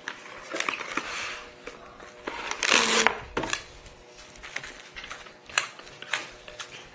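Plastic cling film crinkling as it is pulled off the roll, with a loud rip about three seconds in as it is torn off, then crackling and a few sharp taps as the film is pressed down over a steel bowl.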